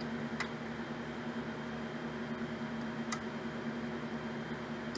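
Metkon Forcipol 1V grinder-polisher running, a steady motor hum, with two light clicks about half a second and three seconds in.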